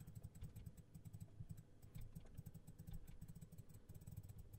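Faint, irregular clicking of computer keys, many quick clicks, over a low rumble.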